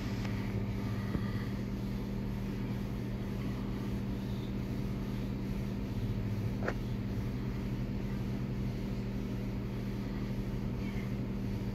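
Steady low machine hum with two unchanging tones, and a single sharp click about seven seconds in.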